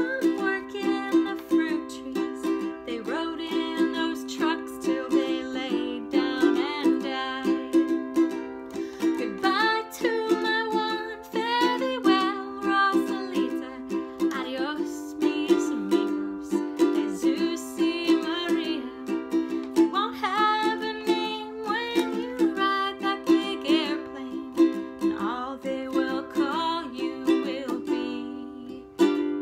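A woman singing a folk song, accompanying herself on a strummed ukulele.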